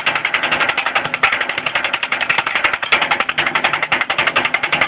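Electric G36-style airsoft rifle (AEG) firing a long full-auto burst, its gearbox cycling in a fast, even rattle of shots, with BBs smacking into the cans and the steel container.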